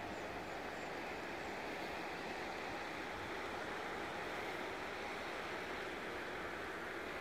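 Steady rushing of the Elliðaá river's fast-flowing water, an even noise with no breaks.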